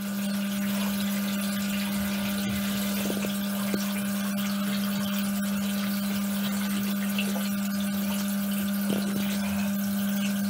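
Aquael Ultramax 2000 canister filter's pump running with a steady electric hum as it pumps water out of a bucket in a flow-rate test. The audio plays at double speed, so the hum sounds higher than it really is.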